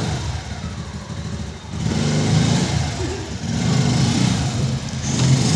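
Motorcycle engine running, growing louder about two seconds in and again near four seconds as the throttle is opened.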